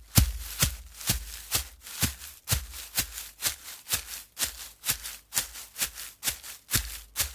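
Footsteps of a person running on a forest trail, a steady crunching of shoes on dirt and gravel at about two steps a second.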